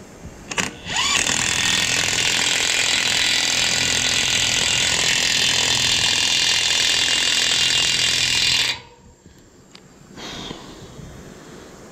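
DeWalt 18 V XR half-inch cordless impact wrench hammering a tine nut tight on a fresh battery. After a couple of short blips it runs steadily for about seven and a half seconds, then stops abruptly; a few light clicks follow.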